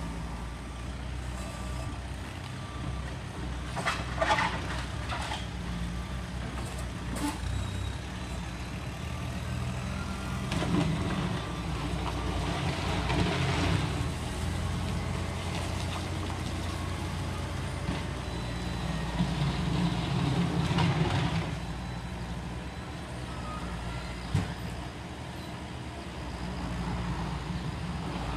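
Caterpillar telehandler's diesel engine running as the machine drives across the street, growing louder about halfway through and again about two-thirds of the way. A few short knocks and rattles come about four and seven seconds in.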